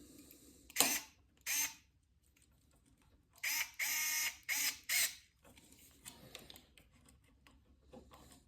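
Short metallic scrapes and clicks of a hot wire being fastened under a light switch's terminal screw: two brief sounds about a second in, then a denser run of several a few seconds later.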